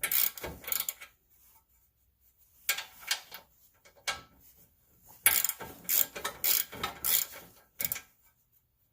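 Hand tools working on a car's front wheel hub assembly: short mechanical clicking strokes in three runs, with quiet pauses between them.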